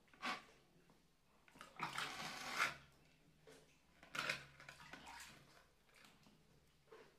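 Water poured and splashed over a baby monkey to rinse it off, in three short gushes: a brief one at the start, a longer one about two seconds in, and another about four seconds in.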